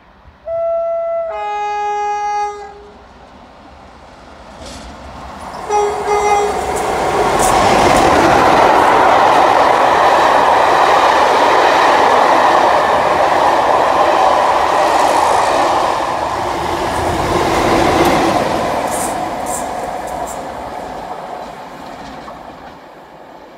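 Two-tone horn of a Class 47 diesel locomotive: a short high note, then a longer low note, and a brief low note again a few seconds later. Then the pair of Class 47 diesels with their coaches passes at speed, wheels clattering over the rail joints, the noise swelling, holding, and fading as the train draws away.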